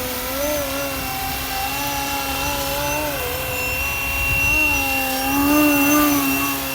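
FlyWing MH-60T Jayhawk RC helicopter in flight, its electric motor and rotors whining with a pitch that rises and falls gently as the throttle changes, over a steady high whine. It gets a little louder about five and a half seconds in.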